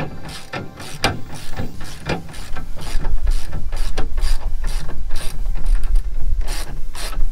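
Hand ratchet clicking as it tightens a bed rail mounting screw, in irregular short runs of clicks, with a low rumble joining about three seconds in.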